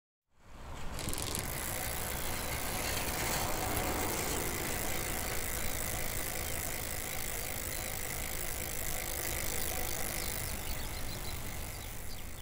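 Steady mechanical rattling and whirring, like a ratcheting mechanism running.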